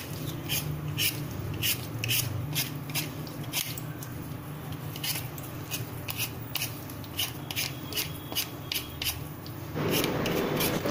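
Vegetable peeler scraping the skin off a raw potato in quick strokes, about two a second. Near the end the strokes give way to a steady hiss.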